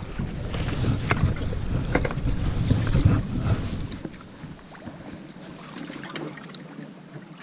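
Wind buffeting the microphone on a small boat, with a few light knocks. The rumble drops away about four seconds in, leaving a quieter hiss.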